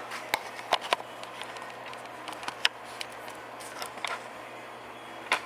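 Scattered light clicks and taps, about half a dozen, over a steady low hum and faint hiss.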